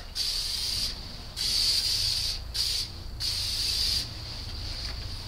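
Aerosol can of cooking oil spraying in four short hissing bursts, each under about a second, with brief pauses between them.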